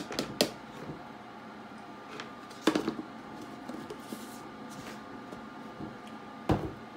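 Handling knocks of a plastic jar of starch: sharp clicks of a porcelain spoon against the jar near the start and again about 3 s in as the screw lid goes on, then a dull thump near the end as the jar is set down on a plastic cutting board.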